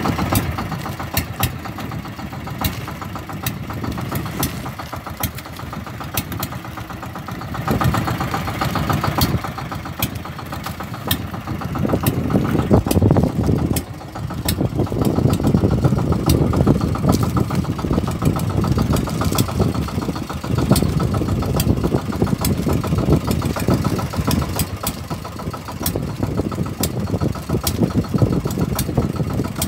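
Fishing boat's engine running steadily with a low rumble that grows louder about eight seconds in and again a few seconds later, with scattered sharp ticks over it.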